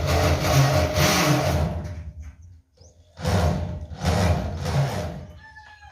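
Power drill driving tek screws into a metal tubular frame, in two bursts of about two seconds each with a short pause between.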